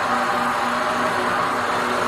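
Gravity-feed spray gun hissing steadily as compressed air atomises base coat onto a car panel, over a steady low hum.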